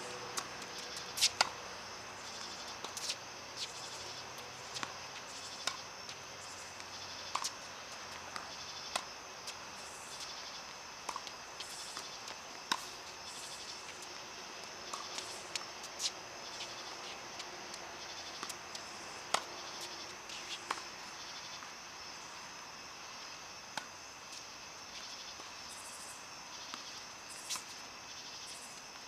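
Tennis balls being struck by rackets and bouncing on the court in a rally: sharp pops every second or two, over a steady high insect hum.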